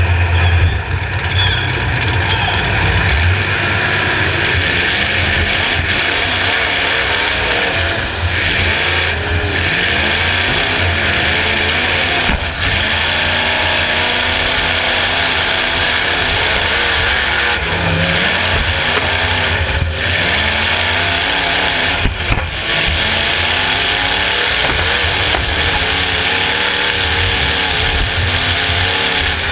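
Demolition derby car's engine, heard from on board, revving hard and repeatedly rising and falling in pitch as the car is driven, with a few brief knocks of impacts.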